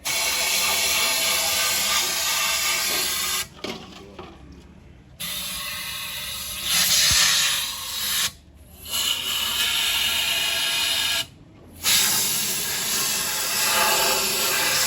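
Loud hissing blasts of a pressurised spray, in four long bursts that start and stop abruptly.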